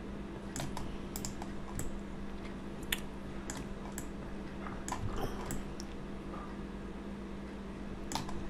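Computer keyboard keys and mouse buttons clicking at irregular intervals, over a steady low hum.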